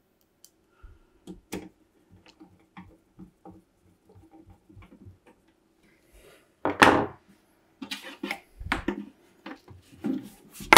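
Screwdriver turning a screw into the sheet-metal bottom panel of a Sony TC-K590 cassette deck: a run of faint, light clicks. A louder knock comes about seven seconds in, then several more knocks and clatter as the deck's metal case is gripped and lifted near the end.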